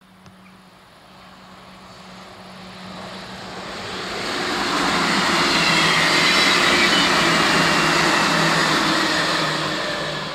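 Dutch Railways Sprinter electric multiple unit passing close by: a rushing rolling noise that grows from faint over the first few seconds, is loudest through the middle, then begins to fade near the end.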